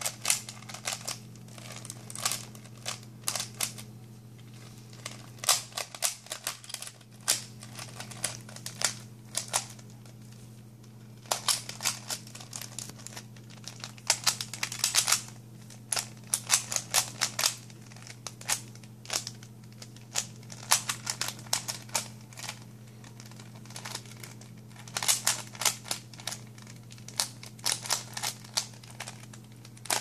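A plastic 3x3 Rubik's cube being turned fast by hand during a solve: bursts of rapid clicks as the layers snap round, broken by short pauses of a second or two. A steady low hum runs underneath.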